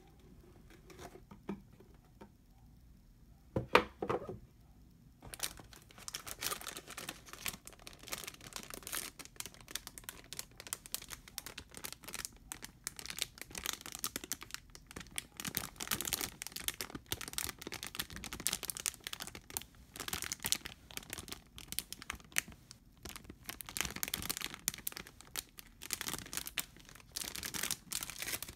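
Clear plastic bags holding model-kit sprue runners crinkling and crackling as they are handled, continuous from about five seconds in. Just before that, a single sharp knock stands out as the loudest sound.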